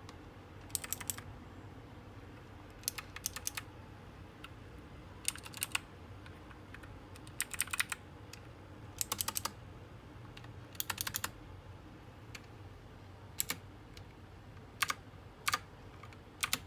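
SteelSeries Apex 7 mechanical gaming keyboard being typed on, its clicky keystrokes coming in short runs of several keys with pauses of a second or two between them.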